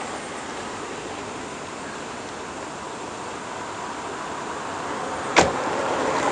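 Steady outdoor road noise that slowly grows louder toward the end as a car approaches on the road, with one sharp click a little over five seconds in.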